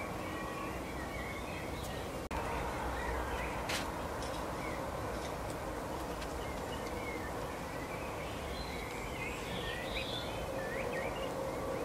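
Small birds chirping in short, scattered calls over a steady noisy background with a faint hum. The sound drops out briefly about two seconds in.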